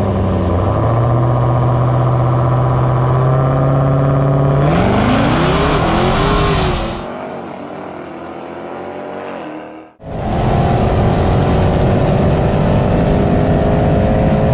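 Jeep Grand Cherokee Trackhawk's supercharged V8 held at raised revs at the line, then launching about five seconds in, its revs rising and dropping through gear changes. After a quieter stretch the sound cuts abruptly to the engine pulling hard at full throttle, its pitch rising slowly.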